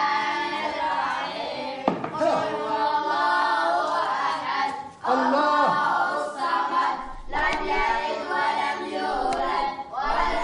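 A group of boys chanting a Quranic recitation in unison from their wooden tablets, a sing-song rote chant that breaks briefly twice, about two and five seconds in.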